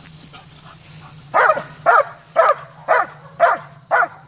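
German Shepherd dog barking hard and regularly at a helper holding a bite sleeve, the Schutzhund bark-and-hold, about two barks a second starting a second and a half in.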